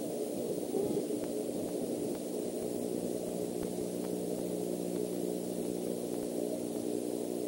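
Steady electrical hum and hiss from an outdoor nest-camera microphone, with a couple of faint, distant owl hoots about a second in and around five seconds in.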